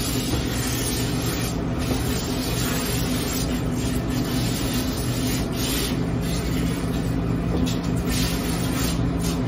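Water running from a handheld trigger sprayer, spraying and splashing onto a wet dog's long coat in a stainless steel grooming tub as it is rinsed down. A steady low hum runs underneath.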